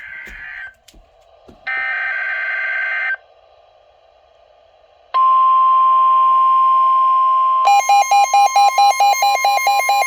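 Emergency weather alert signals: a short screeching data burst, the header of a NOAA Weather Radio alert, about two seconds in, then the steady 1050 Hz weather radio warning tone from about five seconds in. About two and a half seconds later a rapid alarm beeping, about four beeps a second, joins over the tone.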